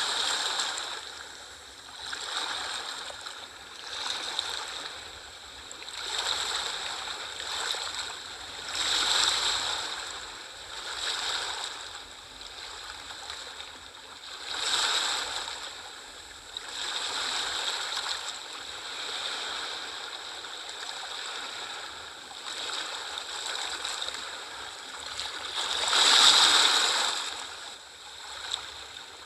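Sea waves washing in, the rush of water swelling and falling back every two to three seconds, with the biggest wave near the end.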